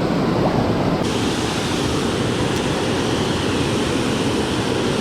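Steady rush of river water pouring over a low dam and falls, a continuous noise with no break. Its tone changes abruptly about a second in.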